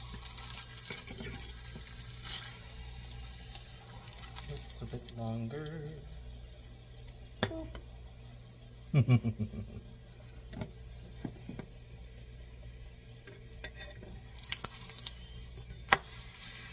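Corn tortilla frying in butter in a small pan, sizzling faintly and fading after the first couple of seconds, with a fork clinking and scraping against the pan. The loudest sound is a short clatter about halfway through.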